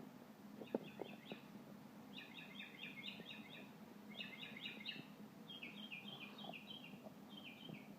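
A bird chirping in five quick series of short high notes. A few faint taps sound about a second in.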